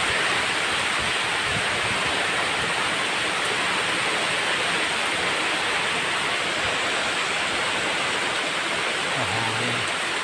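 Heavy tropical rain pouring down in a steady, dense hiss.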